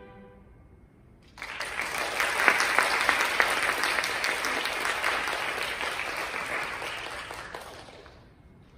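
The string ensemble's last chord dies away, then an audience applauds, breaking out about a second and a half in and fading out near the end.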